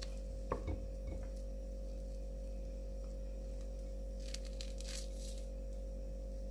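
A lemon being peeled by hand: a few soft handling knocks about half a second in, then short wet tearing and squishing sounds as the peel is pulled away, around four to five seconds in. A steady low hum runs underneath.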